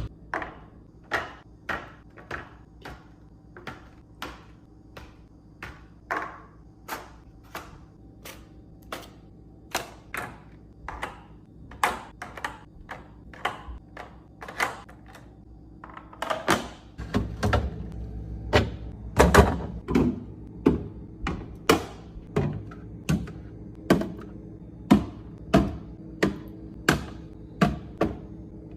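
Food containers, jars and bottles being set down and arranged on fridge shelves: a steady run of sharp taps, clinks and thunks, about two a second, growing louder and busier about halfway through.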